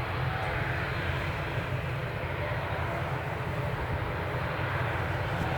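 Twin turboprop engines of an ATR 72 airliner running, a steady, really noisy propeller sound with faint steady tones through it.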